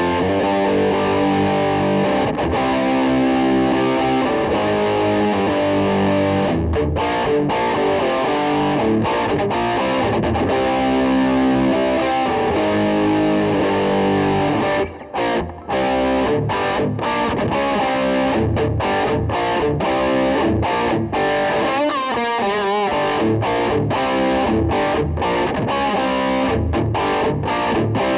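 Electric guitar, a Gibson Les Paul Custom copy, played through distortion, a continuous run of chords and riffs with a short break about fifteen seconds in.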